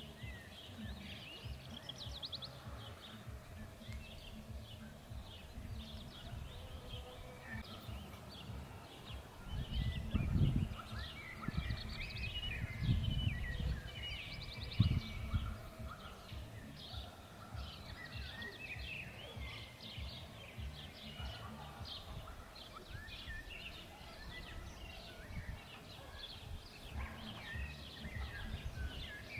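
Several songbirds chirping and trilling throughout, with a steady low background and a few louder low rumbles about a third to halfway through.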